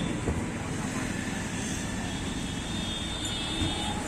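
Steady motor-vehicle noise, with a short knock about a quarter second in and another near the end.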